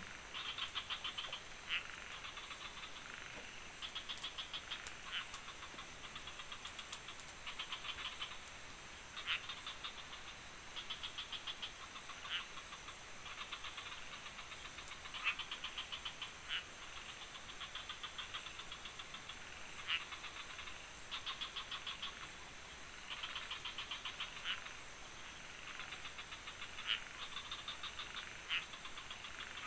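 Frogs calling: rapid pulsed calls about a second long, repeating every second or two, with a few sharper single notes in between.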